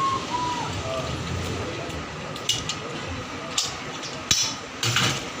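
A few sharp metal clinks and knocks of cookware, over a steady background of kitchen bustle. The tail end of a rooster's crow can be heard at the very start.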